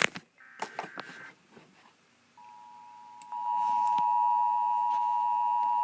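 Emergency Alert System broadcast: a short screeching data burst of the SAME header, then the steady two-tone EAS attention signal, which comes in faintly about two and a half seconds in and turns loud about a second later. It announces a severe thunderstorm warning from the National Weather Service.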